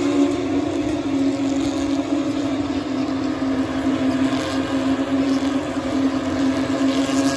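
Steady machine drone holding one even pitch, like an engine or generator running at constant speed.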